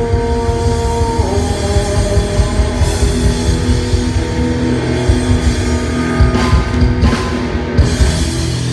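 Live rock band playing: drum kit and electric guitars. Held notes change about a second in, and several cymbal crashes come in the second half.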